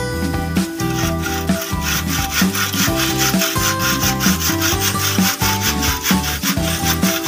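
Hand saw cutting through a lightweight aerated concrete block in quick, regular back-and-forth strokes, each a gritty rasp. Background music plays underneath.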